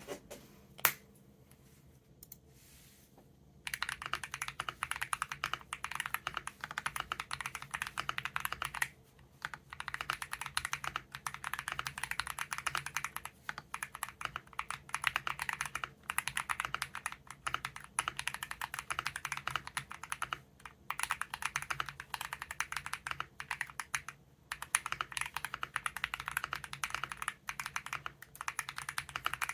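Typing sound test on a GMK67 gasket-mount keyboard with lubed Akko Cream Blue V3 tactile switches, double-shot PBT keycaps and a polyfill-filled case: a single sharp click about a second in, then a steady run of fast keystrokes from a few seconds in, broken by a few brief pauses.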